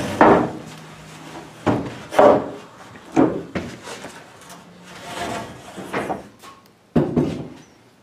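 Irregular wooden knocks and thumps on an old wood-strip floor, about seven in all, as of heavy footsteps crossing the boards.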